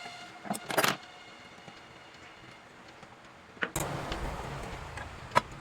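A few sharp clicks and taps, as of small tools or metal parts being handled, with a steady low hum coming in suddenly about two-thirds of the way through.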